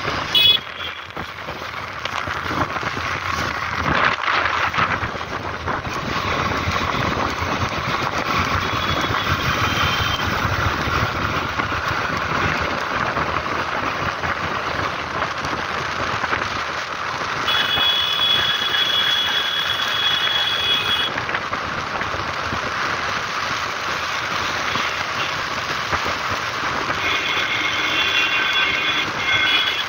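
Motorcycle riding on a wet road at about 50 km/h: a steady rush of wind, tyre hiss and engine. There is a brief loud knock just after the start, and a steady high tone sounds for a few seconds twice, a little past halfway and near the end.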